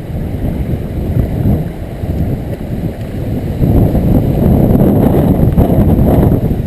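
Hurricane Sandy's storm wind buffeting the microphone in a loud, gusting rumble that grows stronger about four seconds in.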